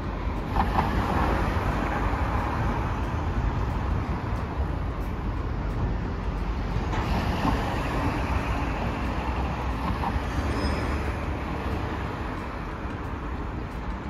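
Steady street traffic noise of road vehicles passing a tram crossing, with a minibus going by about halfway through.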